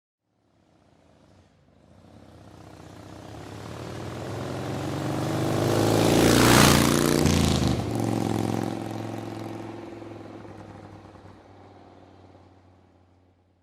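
A motorcycle passing by. Its engine note grows from faint to loud over about six seconds, drops in pitch as it goes past, then fades away over the next six seconds.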